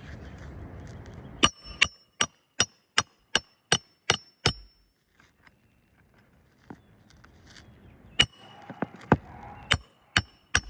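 Hammer driving roofing nails through an asphalt shingle: two runs of quick, ringing strikes, about three a second, with a pause between them. Before the first run there is a rustling, scraping noise.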